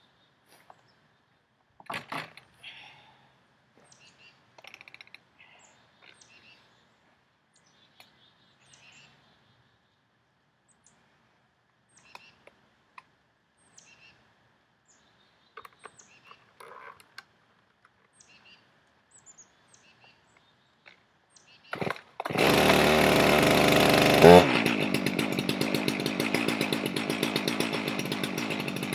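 Stihl MS 391 two-stroke chainsaw starting after about twenty seconds of faint scattered clicks. It runs fast for about two seconds, then drops to a lower, evenly pulsing idle.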